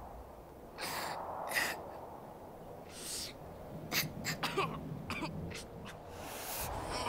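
A child coughing and gasping: short breathy bursts a second or so apart, a few faint clicks a little past the middle, and another breathy gasp near the end.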